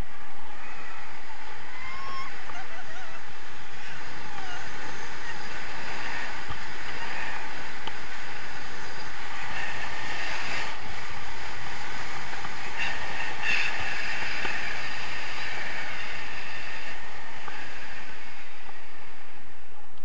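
Wind rushing steadily over the microphone of an action camera held on a selfie stick in flight on a tandem paraglider.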